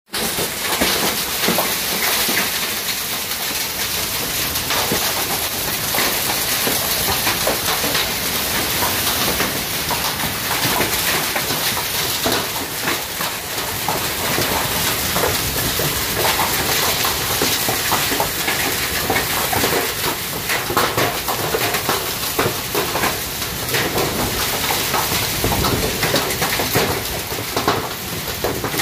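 Heavy thunderstorm downpour: a steady roar of rain on bare ground and corrugated metal roofing, dense with sharp individual drop impacts.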